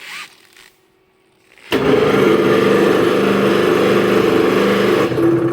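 Electric tilt drive of a Bode welding positioner switching on abruptly, its motor and gearbox running with a loud, steady hum as the table tilts. The pitch of the hum shifts slightly near the end.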